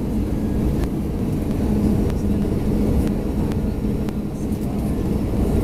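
Steady low rumble of engine and airflow inside the cabin of an Airbus A320-214 descending on approach, heard from a window seat beside its turbofan engine, with a steady low hum under it and a few faint clicks.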